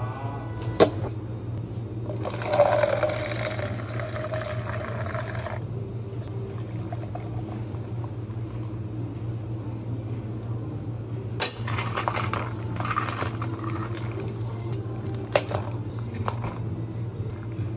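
Liquid poured into a plastic cup during drink-making, once about two and a half seconds in and again a little past the middle, with a few sharp knocks of cups and bottles on the counter. A steady low hum runs underneath.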